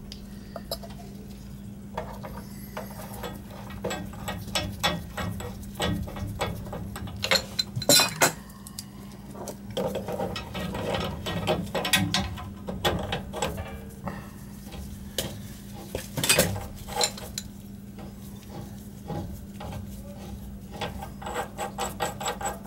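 Irregular metal clinks, scrapes and rattles as steel gas pipe fittings and tools are handled and screwed together by hand at a gas water heater's control valve. A steady low hum runs underneath.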